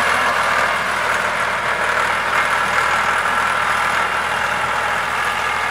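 Farm tractor's diesel engine running steadily under load as it pulls a tine cultivator through the soil, easing slightly as the tractor moves away.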